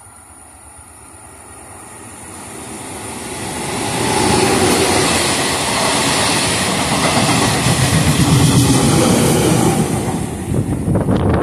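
An empty Mdvc coach train with an E464 electric locomotive passes through the station. The rumble and wheel noise build steadily as it approaches and stay loud while the coaches go by. Near the end comes a quick run of clickety-clack as the locomotive's wheels cross the rail joints.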